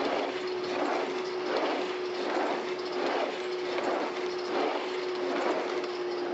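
Slidewinder skating exercise machine in use: its sliding foot carriages and flywheel mechanism run with a steady hum and a rhythmic mechanical rasp that swells with each skating stride, a little more than once a second.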